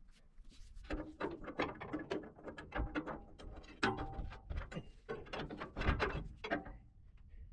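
A steel crowbar prying and scraping against the boom lift's cylinder sheave and boom steel. It makes an irregular string of metal clicks, clanks and scrapes that stops shortly before the end.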